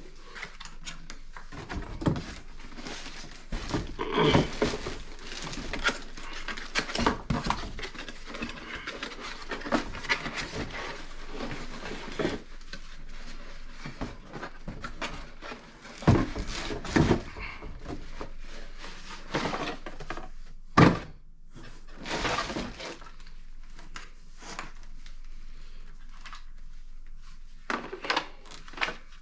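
Irregular clunks, knocks and rustling as a battery pack is handled and fitted into a cordless electric chainsaw. The loudest knocks come at about 16, 17 and 21 seconds in.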